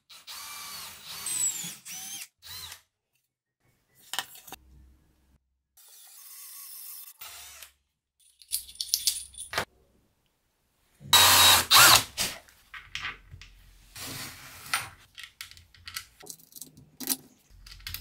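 A string of short power-tool bursts, an electric drill among them, cut together with silent gaps between them; the loudest burst comes about eleven seconds in.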